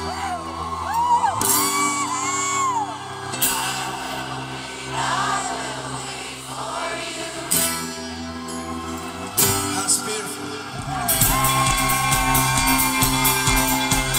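Live band music over a stadium PA, heard from within the crowd: held chords under a sung melody, with some whoops from the audience. About eleven seconds in the band comes back in louder with fast strummed guitar.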